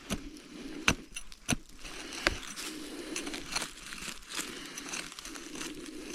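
Loose soil and leaf litter handled and dug through while searching a dug hole for a metal-detector target: crunching and crinkling, with sharp knocks about one, one and a half and two and a quarter seconds in.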